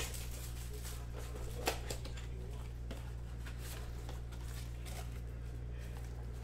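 Steady low hum with faint handling noise of trading-card boxes and foil packs being moved by hand, including one sharp click a couple of seconds in.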